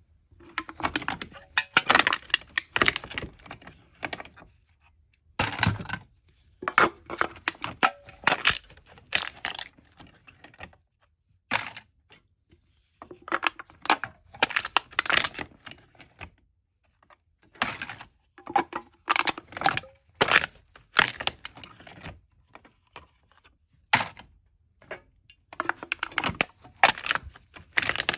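Aluminium cans being crushed: repeated bursts of crinkling, crackling thin metal, each lasting from under a second to a few seconds, with short pauses between.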